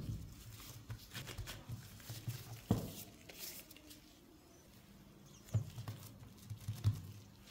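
Gloved hands folding, lifting and pressing dough on a silicone baking mat: soft pats and thumps of dough against the mat with light rustling of the plastic gloves, a few sharper thumps about three seconds in and twice near the end.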